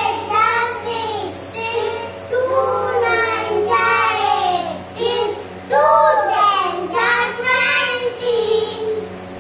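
A child singing the multiplication table of two in Hindi as a rhyme, line after line, over a steady low hum.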